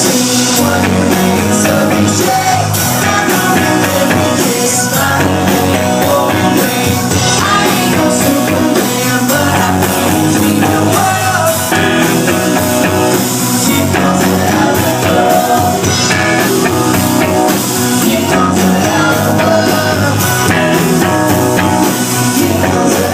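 Rock band playing loud and steady, with guitars and a drum kit keeping a regular beat and singing at times.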